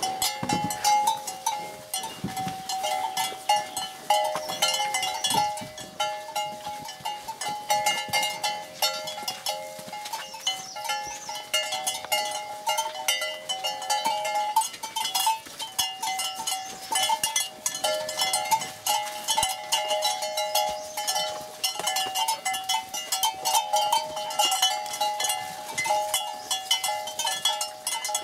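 Bells on a herd of cattle clanking and ringing unevenly as the animals jostle, a dense jangle of several pitches with sharp knocks throughout.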